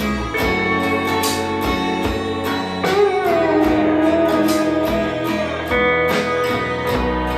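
Guitar-led music with a steady beat, played through JBL Decade L16 loudspeakers; a sliding guitar note comes in about three seconds in.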